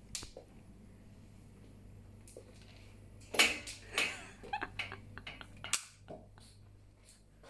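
A run of short sharp knocks and clicks over a faint steady low hum, the loudest about three and a half and four seconds in, then several quick ones: handling noise from a hand-held phone being carried through the house.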